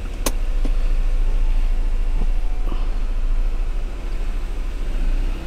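Acura NSX's mid-mounted V6 running at low revs as the car creeps forward in first gear, heard from inside the cabin as a steady low rumble; the clutch now engages after a new slave cylinder was fitted and bled. A sharp click sounds about a quarter second in.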